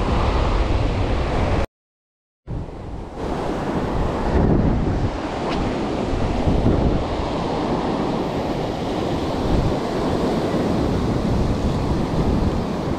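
Ocean surf breaking and washing over the rocks, with wind rumbling on the microphone. The sound cuts out completely for under a second about two seconds in.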